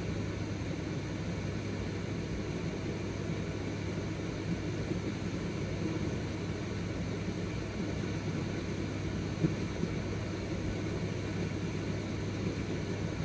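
Steady low hum of room background noise, like a fan or air conditioner running, with one faint click about nine and a half seconds in.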